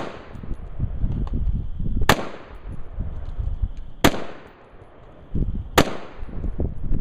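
Three single gunshots, about two seconds apart, each a sharp crack with a short echo, with low rumbling between them.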